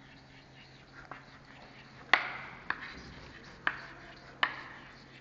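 Chalk on a blackboard as a word is written: about five sharp taps, the loudest about two seconds in, several followed by a short scratch of the chalk. A steady low hum runs underneath.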